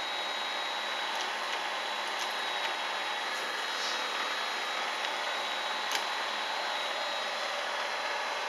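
Late-1970s Kent 2 hp Bridgeport-clone milling machine running, its spindle motor fed by a variable frequency drive: a steady whir with a constant high whine. A few light clicks come as the quill power feed is worked.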